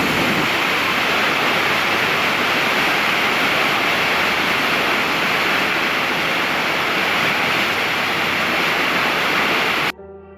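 Loud, steady rushing hiss, even and without rhythm, that cuts off suddenly about a second before the end, leaving a faint sustained tone.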